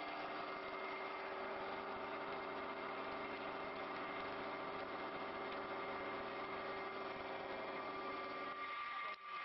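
CNC wood lathe running, a steady machine hum with several constant motor tones; the sound drops out briefly about nine seconds in.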